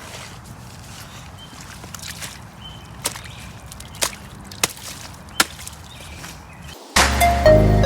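A shovel striking dirt and debris while a trench is filled back in: four or five short, sharp knocks over faint outdoor background. About seven seconds in, loud music starts abruptly.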